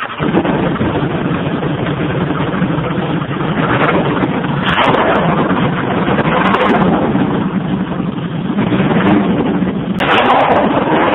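Motorcycle engine in a homemade buggy running loudly as the buggy pulls away, held in first gear, its revs rising and falling and climbing again about ten seconds in.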